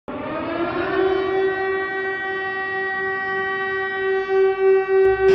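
A single long, steady horn blast, its pitch settling upward just after it starts and wavering near the end.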